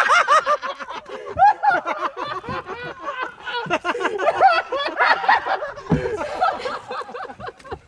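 People laughing and chuckling, with bits of indistinct talk.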